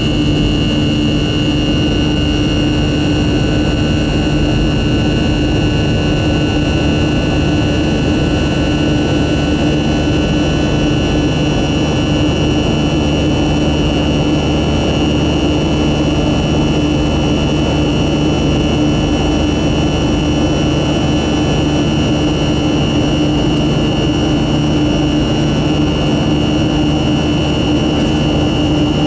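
Boeing 737-400's CFM56 turbofan engines running steadily, a constant jet roar with a steady hum and a high whine held at one pitch.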